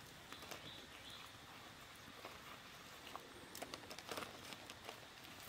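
Faint forest ambience with a few soft clicks and rustles, clustered about three and a half to four seconds in, and a brief faint high chirp about a second in.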